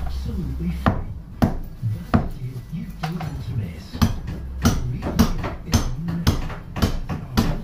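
Hand hammer striking at brickwork and a steel beam in a wall opening: about a dozen sharp, clattering knocks at an uneven pace, over a steady low hum.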